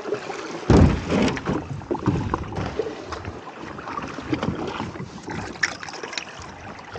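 A loaded kayak being paddled off on the sea: water sloshing with irregular paddle splashes and taps. There is a loud low thump about a second in.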